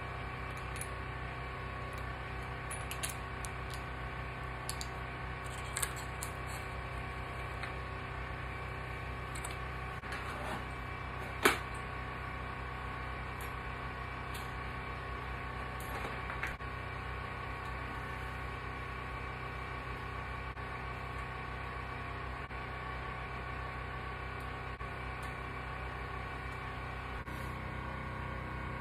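Scattered clicks and knocks of metal bike parts and tools being handled during fork reassembly, with one sharp knock about eleven seconds in, over a steady mechanical hum.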